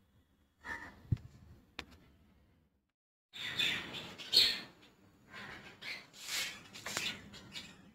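Dry turtle food pellets rustling and rattling in a plastic tub as a hand scoops and handles them, in irregular scratchy bursts after a few faint clicks.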